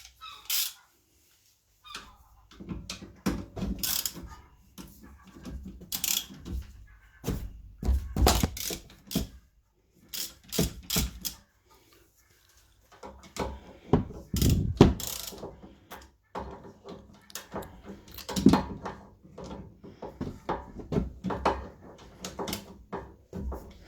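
Irregular metallic clicks and knocks from a socket wrench and tools working on a car's rear brake caliper, as a 12 mm socket is fitted to the caliper bolts.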